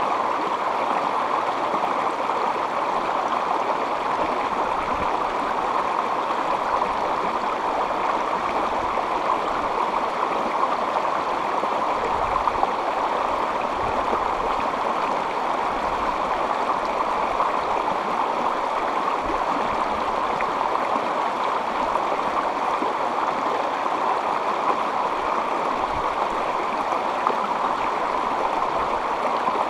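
Shallow river water rushing over rocks in a small rapid: a steady, even rush of water.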